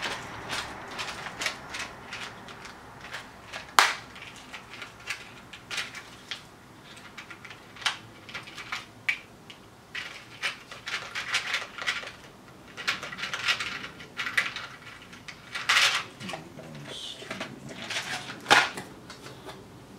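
Irregular clicks, taps and rattles of small kit parts and plastic component boxes being handled on a workbench, with two sharper knocks, one about four seconds in and one near the end.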